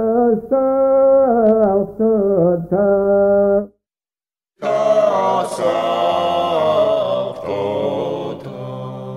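Georgian Orthodox chant from archive recordings: a single male voice sings a short phrase of a Kontakion for about four seconds, then after a brief pause a hissier old recording of the same phrase follows, with several male voices singing in parts.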